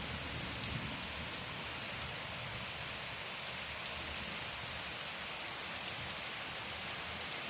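Steady rain falling, an even hiss with a few sharp drops striking close by, the clearest about half a second in.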